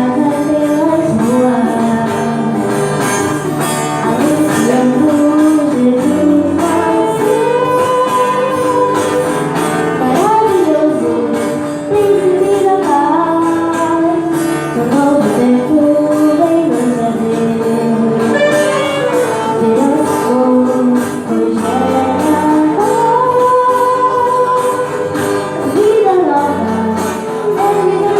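A song sung by a female voice over instrumental accompaniment, with a regular percussive beat.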